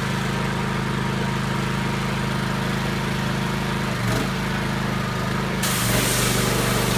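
Pressure washer engine running steadily. About five and a half seconds in, the spray hiss starts as the wand is triggered, and the engine note changes under the load.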